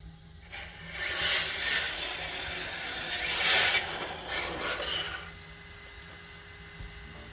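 Yokomo DIB RWD radio-control drift car's hard tyres sliding and scrubbing over the floor in several surges for about four seconds, then dying away to a low background.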